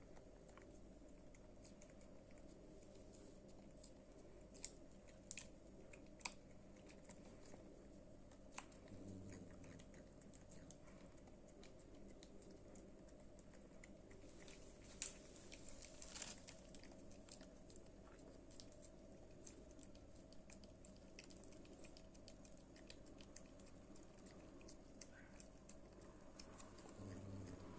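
Cat chewing its food: faint, scattered clicks and crunches with a few louder ticks, over a low steady hum.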